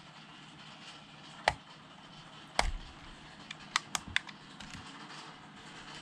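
A few sharp plastic clicks and taps as a handheld digital kitchen timer is handled: one about a second and a half in, a louder knock about a second later, then a quick run of four light clicks around the four-second mark.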